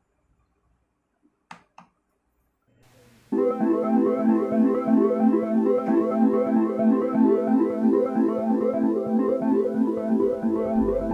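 A couple of faint clicks, then background music starts suddenly about three seconds in: a quick, repeating pattern of pitched notes that keeps going.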